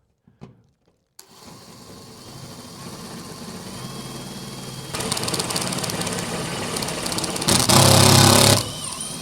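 Power drill running a screw in, switched to high power: a motor whir that starts about a second in and slowly builds, turns louder and rattly about five seconds in, then runs at its loudest in a burst of about a second near the end before easing off.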